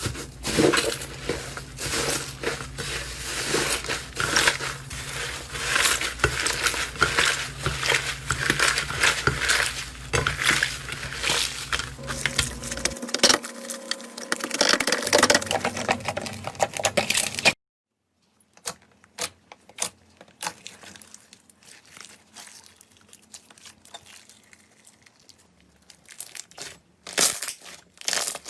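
Slime being squeezed and pressed by hand, making dense crackling and popping. It cuts off suddenly about two-thirds of the way in. After that come quieter, scattered pops and clicks, which grow louder again near the end.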